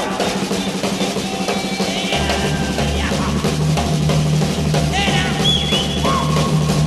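Music with a drum kit playing; a deep bass line comes in about two seconds in.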